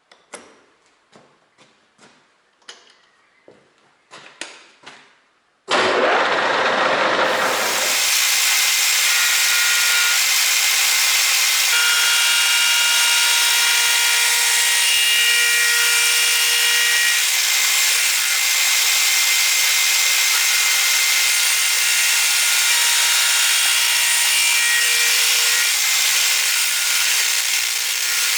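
A handful of separate knocks and clicks, then about six seconds in a power tool starts suddenly and runs loud and steady, a harsh hiss with a few thin steady tones in it.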